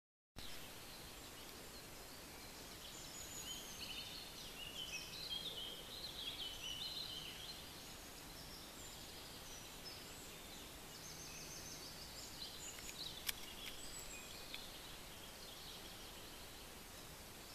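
Small birds chirping and singing in woodland, many short high calls, busiest in the first half, over a faint steady outdoor hiss. One sharp click a little past the middle.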